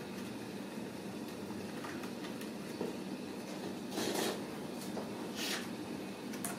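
Ragdoll kittens scuffling on cardboard scratchers and a tile floor: a few short rustles, the loudest about four seconds in and another about a second later, over a steady background hum.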